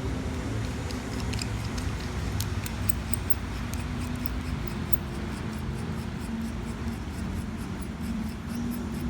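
Light clicking and ticking of small plastic and metal parts as a Bergeon 4266 watch case opener is put back together, over a steady low hum. The clicks come fairly regularly, several a second, from about two and a half seconds in.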